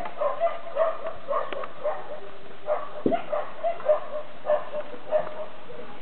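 A run of short, repeated animal calls, two or three a second.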